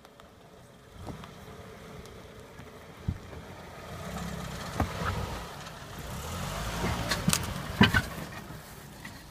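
2000 Toyota RAV4's four-cylinder engine running at low revs as it crawls over a rooty dirt trail, getting louder as it comes close and passes. A few sharp cracks and knocks sound over it, the loudest about eight seconds in.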